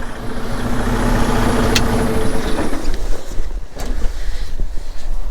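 Western Star truck's diesel engine running with its newly installed PTO engaged. A steady whine over the engine's rumble stops a little past halfway, leaving the lower engine sound, with a single click just before.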